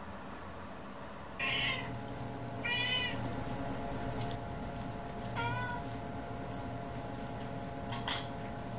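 Domestic cat giving three short, high-pitched meows, begging while its breakfast is being prepared. Two quick clicks near the end.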